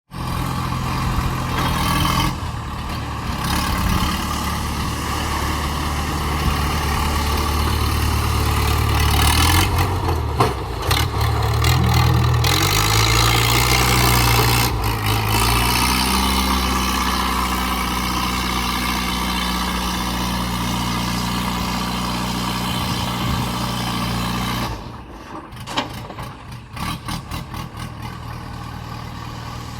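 Diesel engine of a JCB 3DX backhoe loader working, its pitch rising as it revs up partway through, then holding steady. About 25 seconds in the engine sound drops sharply and a series of short knocks follows.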